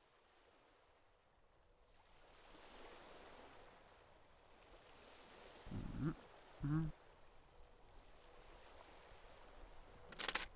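Soft wash of sea ambience, with two short voice-like murmurs about six seconds in and a sharp metallic clack near the end as a camera tripod is set down and its legs locked.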